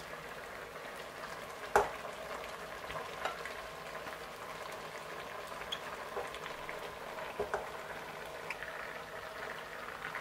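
A pot of water leaves and meat bubbling steadily at the boil. There is one sharp knock about two seconds in and a few lighter knocks later, as the lid comes off and shredded eru leaves go in.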